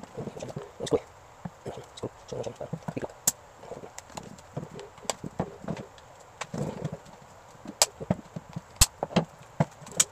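Irregular sharp clicks, taps and knocks as the plastic back panel of a portable Bluetooth speaker is pried off its casing with a metal pry tool: the tool scraping and clicking on the plastic and the panel's clips snapping loose, with handling knocks.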